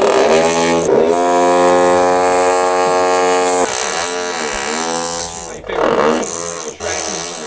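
A buzzing hammer drill sound used as a character's voice, pitched up and down in the rhythm of speech. It holds one steady note for a couple of seconds, then breaks into several short rising and falling glides.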